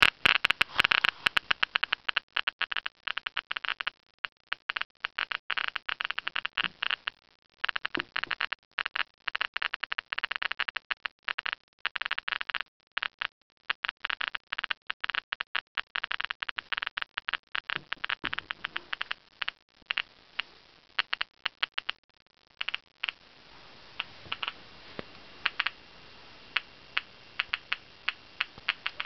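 Old radiation meter's speaker clicking rapidly in a dense crackle, detecting radiation from a radioactive isotope in a person's body. About 22 seconds in, the clicks thin out to a few scattered ones.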